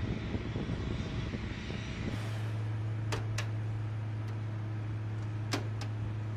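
Jumbled low rumble and handling noise, then, after a cut about two seconds in, a steady low machine hum with several sharp clicks in two close pairs.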